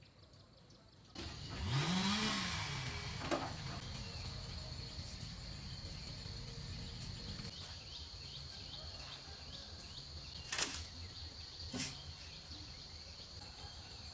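Steady high chirring of insects such as crickets, with a brief low sound that rises and falls in pitch about two seconds in. A few sharp knocks and scrapes of a shovel working sand into a metal wheelbarrow come about three seconds in, then twice more near the end.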